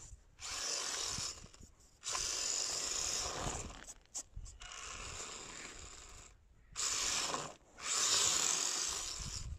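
WLtoys K989 1/28-scale RC car's small electric motor and gears whirring in about five short bursts as the throttle is applied and released, with its tyres on rough tarmac. It is running on a low-charge 2S battery.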